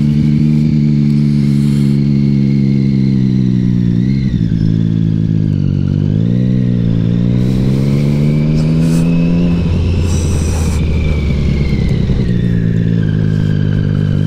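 Motorcycle engine running while the bike is ridden through turns. The engine note dips about four seconds in and again around six to seven seconds, climbs, then turns deeper and rougher for a few seconds about ten seconds in before settling back to a steady note near the end.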